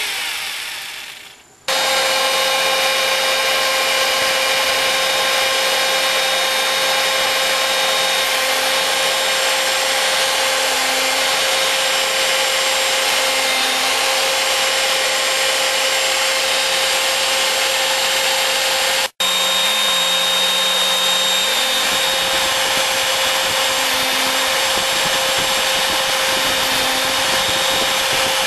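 Spindle of a home-made CNC router running at steady speed, a constant whine over a noisy rush as it mills holes in a wooden board. The sound fades away at the start, cuts back in abruptly under two seconds in, and breaks off for a moment about two-thirds through.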